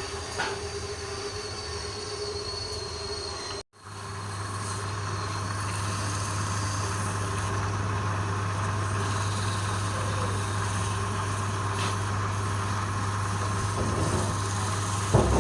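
Wood lathe running with a steady hum while a turning tool cuts the spinning wood, giving a continuous scraping with a thin squeal. The sound cuts out briefly just before four seconds and picks up again, and a short knock comes near the end.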